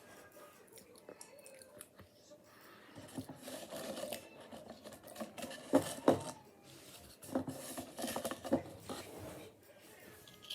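Potato chips being eaten: scattered crisp crunches and crackles with short rustles, the sharpest clicks coming in clusters about six seconds in and again around eight seconds.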